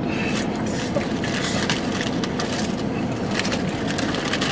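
Irregular crackling and rustling, many small crackles, over a steady hiss inside a car.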